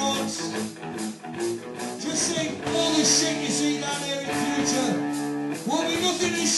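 Rock band music: electric guitar and drums with a voice singing.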